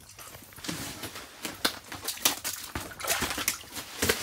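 Water splashing and dripping in an ice-fishing hole as a small northern pike is held by hand over the water and let go, in irregular splashes with the loudest at the end.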